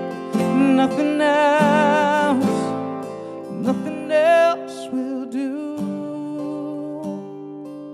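Live worship music: two acoustic guitars strummed with men's voices singing long held notes with vibrato. The singing drops out after about four and a half seconds and the guitars ring on, getting quieter toward the end.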